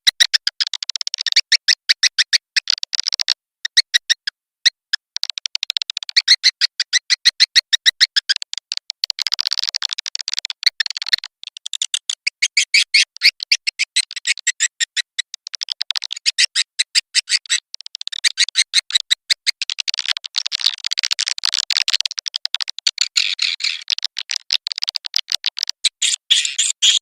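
Swiftlet lure call track (a 'birahi' mating-call recording used to draw swiftlets into a nesting house): fast runs of high-pitched twittering chirps in groups of a few seconds, with short pauses between them.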